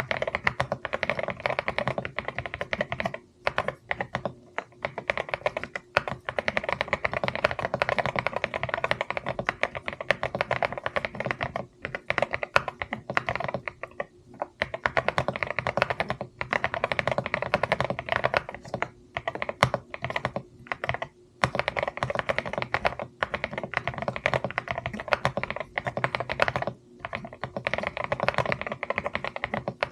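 Fast, continuous typing on a mechanical keyboard: a dense run of key clacks, broken by short pauses every few seconds.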